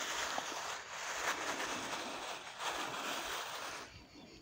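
Plastic bag rustling as a hand digs crushed charcoal out of it, a steady hissing crinkle that pauses briefly twice.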